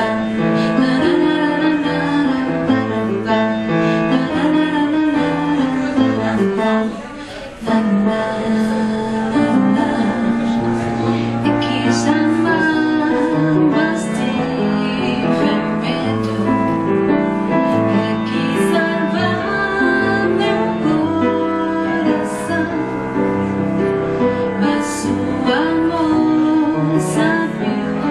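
Piano playing a slow ballad accompaniment while a woman sings over it, with a brief drop in the music about seven seconds in.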